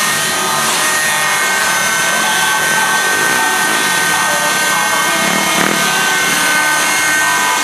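Radio-controlled model helicopter's small nitro engine and rotors running at high revs in flight, a steady high-pitched mechanical whine.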